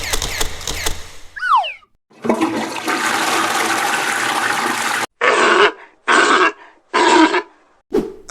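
A string of comic sound effects: rapid clicking, a short falling whistle, then a long rushing whoosh like a toilet flush, followed by three short noisy blasts about a second apart and a final click.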